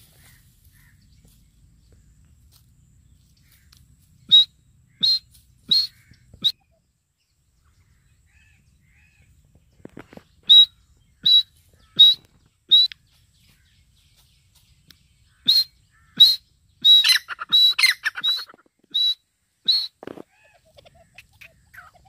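Irani teetar (partridge) calling: short, sharp, high notes about one to two a second, in three bouts. The last and longest bout gets busier in its middle, with notes overlapping.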